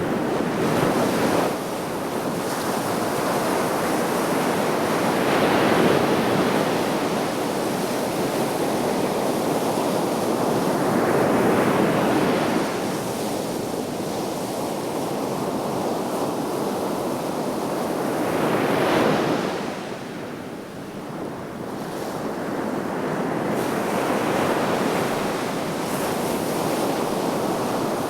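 Sea waves breaking and washing on the shore in swelling, receding surges every few seconds, with wind on the microphone.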